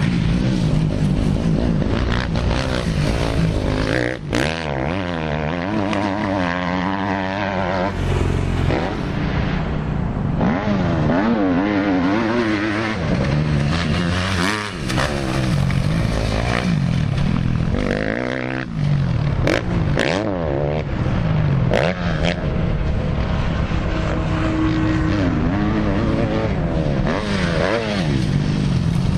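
Motocross bike engines revving hard and falling off again and again, the pitch sweeping up and down with each throttle change and gear shift, with brief drops in loudness now and then.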